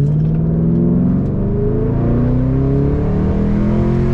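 Mercury Marauder's 4.6-litre four-valve V8 under full-throttle acceleration from a standstill, heard from inside the cabin: the revs climb steadily, with a brief dip about a second in as the 4R70W automatic shifts up.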